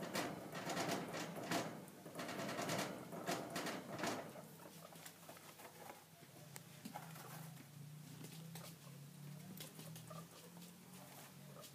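Guinea pig scrabbling at the wire bars of its cage and rustling in the bedding, a busy run of clicks and rustles for about four seconds. After that it goes quieter, with a low steady hum.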